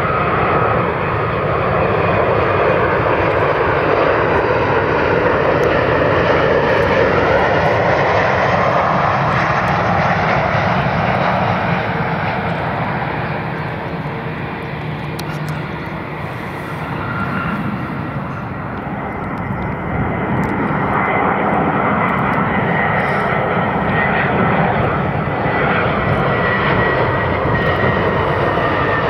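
Jet airliner engines through a landing: a Boeing 737-700's CFM56 engines on final approach and touchdown, then an Airbus A320 on approach near the end. A continuous jet engine sound, easing off somewhat in the middle and building again in the second half.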